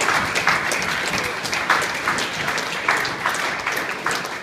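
A roomful of guests applauding with many hands clapping, dying down toward the end.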